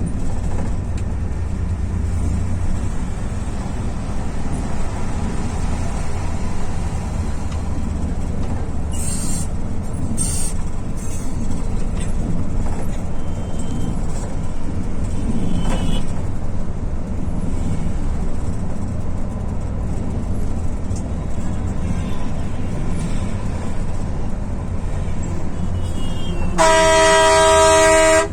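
Volvo bus engine running steadily under a low rumble of road noise. Near the end a loud, multi-tone vehicle horn sounds for about two seconds.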